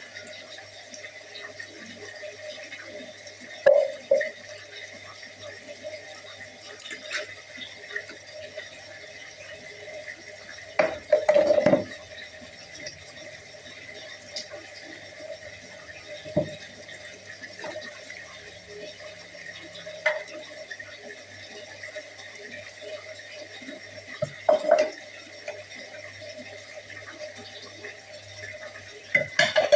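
Dishes being washed in a sink: water over a steady background, with scattered short clinks and knocks of dishware every few seconds, the loudest cluster near the middle.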